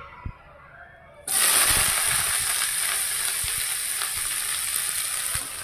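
Chopped cabbage, capsicum and coriander tipped into hot oil in a kadhai: a loud sizzle starts suddenly about a second in and goes on steadily as the vegetables fry.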